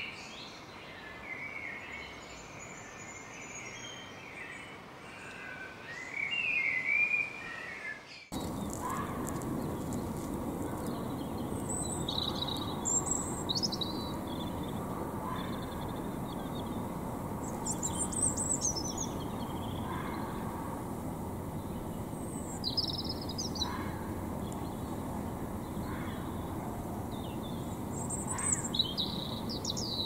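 Birds chirping for the first eight seconds. After a sudden change, a steady low hum of suburban traffic at night, with short, harsh, high-pitched red fox screams every few seconds.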